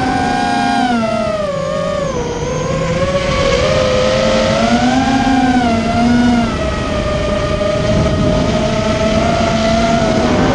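ImmersionRC Vortex 250 Pro racing quadcopter's electric motors and propellers whining in flight, the pitch rising and falling with the throttle. It is being test-flown to check whether the bad bearing noise in its motors has been fixed.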